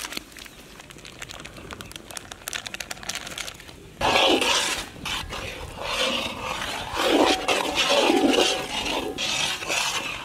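Metal ladle stirring and scraping thick butter chicken gravy in a large iron kadai, in uneven strokes that start suddenly about four seconds in. Before that there are only faint clicks.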